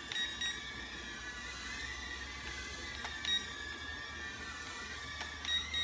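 Mini FPV nano quadcopter's small propellers whining while it hovers, the pitch wavering slowly up and down as the motors adjust, with a few short high blips.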